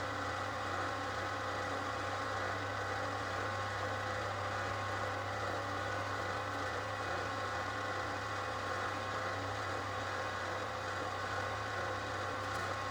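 Durst RCP20 darkroom paper processor running, a steady motor hum and whir that holds even throughout.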